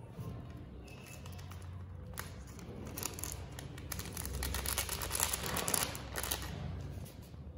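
Crinkly plastic snack packet being handled and crushed, a dense crackling rustle that is loudest in the middle.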